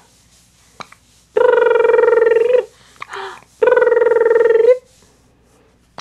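Electronic telephone ringing twice, each ring a steady warbling tone just over a second long, about a second apart. Faint short clicks of a baby's hiccups come in the gaps.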